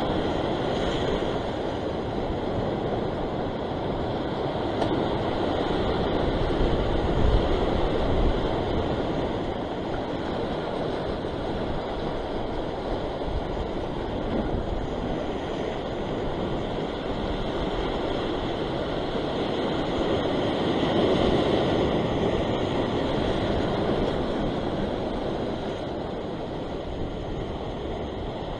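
Sea surf washing and surging against a rocky shore ledge: a steady rushing noise that swells louder about seven seconds in and again around twenty-one seconds.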